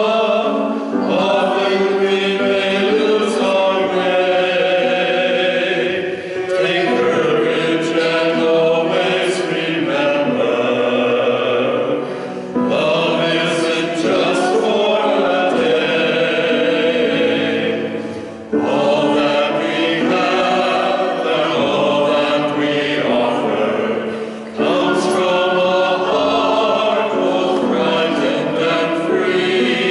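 Small mixed choir of men and women singing together, in phrases of about six seconds with a short break between each.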